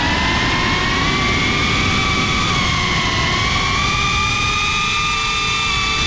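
FPV quadcopter's brushless motors whining, the pitch rising slowly as the throttle changes, over a rough rushing noise picked up by the onboard GoPro.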